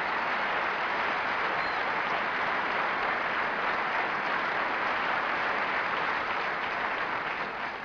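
An audience applauding steadily, beginning to die down near the end.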